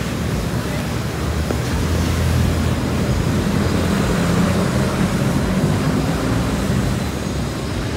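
Street traffic: a vehicle engine hums louder through the middle and eases near the end, over a steady hiss.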